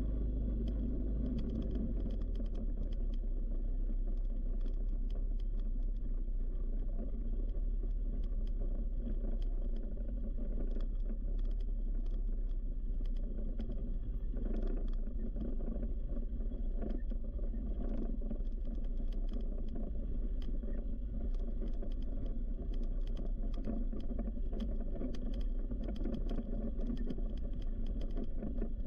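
ATV engine running steadily while riding a rough dirt trail, with many short clicks and rattles over it.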